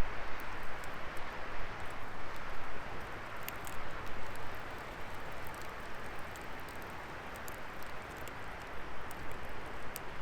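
Wood fire burning, a steady hiss with scattered small crackles and pops, more of them near the end.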